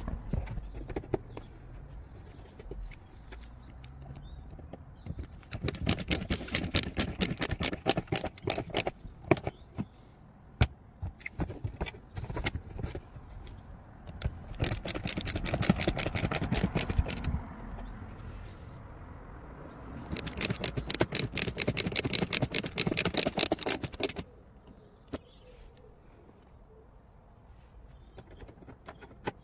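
Cordless screwdriver turning screws in the plastic front wheel arch liner of a 2014 Vauxhall Astra J, three runs of a rapid rattle of clicks of about three to four seconds each. Quieter handling of the liner comes between the runs.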